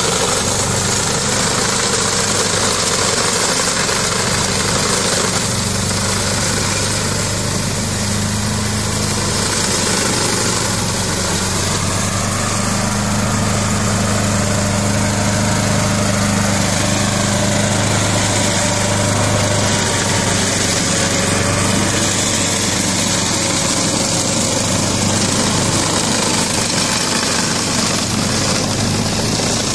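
Ferrari 95RS compact tractor's 40 hp Lombardini diesel engine running steadily under load, powering a rear rotary brush cutter as it mows through tall cane and grass.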